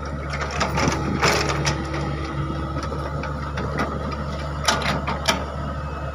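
Hydraulic excavator running steadily under load, with metallic clanks and rattles from its working parts, the sharpest about a second in and twice near five seconds.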